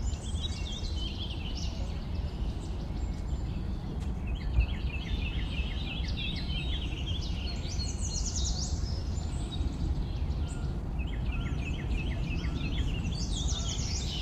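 Green bee-eaters calling: bursts of quick chirps and runs of rapid trilled notes, repeating every few seconds over a steady low background rumble.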